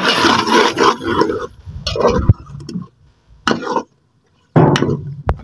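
A steel ladle stirring and scraping thick meat curry around an aluminium pot, a dense run of scraping at first, then scattered short scrapes and knocks with gaps between them, with a brief louder sound near the end.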